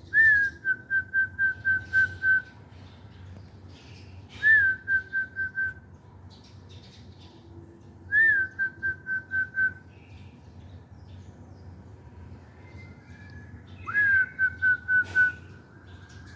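A person whistling the same call four times. Each call is one short rising-and-falling note followed by a quick run of short, even pips at about four a second, all on one high, pure pitch.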